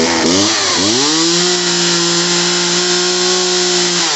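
Poulan Wild Thing 2375 LE two-stroke chainsaw engine running after a carburetor, fuel line and primer bulb replacement. It is blipped twice in the first second, then revved and held steady at high speed before the revs drop just at the end. It is freshly tuned and running perfect.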